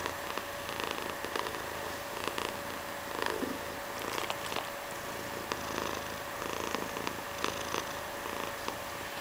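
Domestic cat purring close up, the purr swelling and easing about once a second with its breathing.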